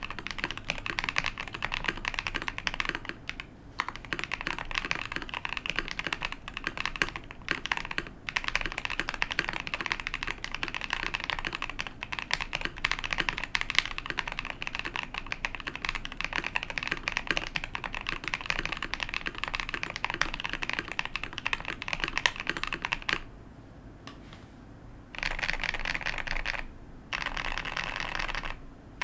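Typing on a KBD67 Lite custom mechanical keyboard with lubed Tecsee Purple Panda tactile switches, a polycarbonate plate and PBT keycaps: a fast, continuous run of key clicks. The typing stops briefly a few times, goes quiet for about two seconds near the end, then resumes in two short, dense bursts.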